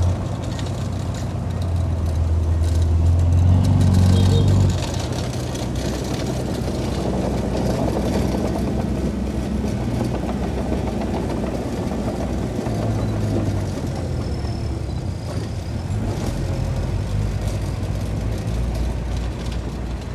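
Heavy earthmoving machine's diesel engine running. It grows louder for a few seconds, then drops back suddenly about five seconds in and keeps running steadily.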